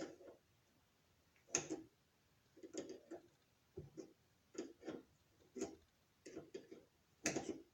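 Irregular light metal clicks and scrapes of a small tool working at a small aluminum piece in a brake master cylinder, which is not coming out. About a dozen short clicks come unevenly, the loudest near the end.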